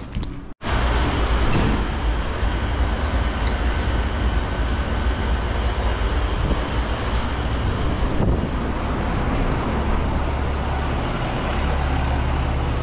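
Wall-mounted pressure washer running: a steady low motor hum under rushing water noise, starting abruptly just after a brief cut.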